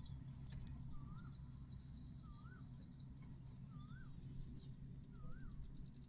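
Birds calling: a short whistled note that rises and falls, repeated four times at an even pace about every second and a half, over faint high thin chirping.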